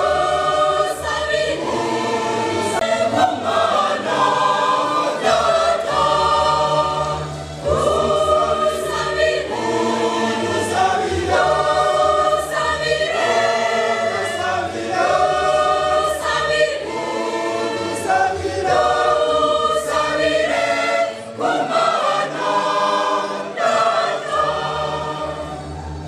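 Mixed-voice church choir of men and women singing a hymn in Kinyarwanda, in full harmony.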